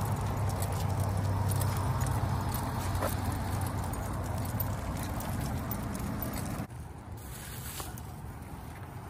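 A large pack of leashed dogs walking on asphalt: many paws and claws pattering, with jingling tags and leash clips, over a car's low engine hum. The sound drops suddenly about seven seconds in.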